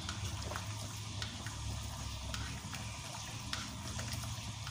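Cornstarch-thickened asado sauce bubbling in a wok as a spatula stirs it, with scattered small pops and clicks.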